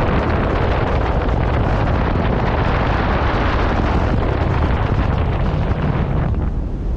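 Airflow buffeting the microphone of a camera on a paraglider pilot's harness in flight: a loud, steady rush of wind noise. The higher hiss eases off about six and a half seconds in.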